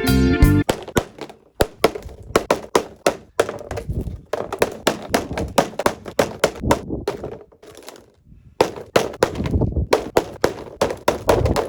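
Guitar music ends within the first second, then a string of irregular taps, clicks and knocks follows, like objects being handled close to the microphone, with a short lull about eight seconds in.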